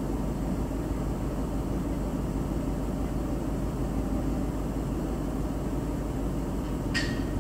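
Steady low rumble with no clear rhythm, with a brief sharp click right at the end.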